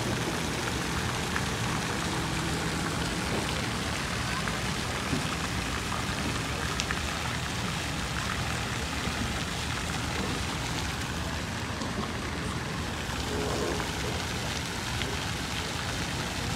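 Steady hiss like light rain or spray on water, with faint voices underneath; the Taiga Orca electric personal watercraft gliding past adds no engine sound of its own.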